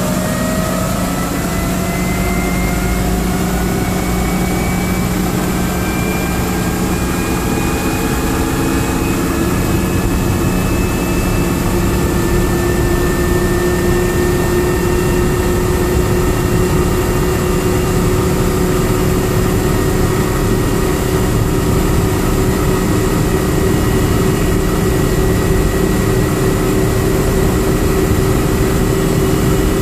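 Helicopter turbine engine spooling up after start, heard inside the cabin: a whine rising in pitch over roughly the first ten to twelve seconds, then settling into a steady whine over a low rumble.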